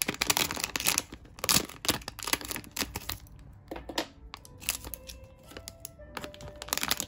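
Metallic foil blind-box bag crinkling and crackling as it is cut and pulled open by hand. The crackle is densest in the first couple of seconds and grows sparser after about three seconds.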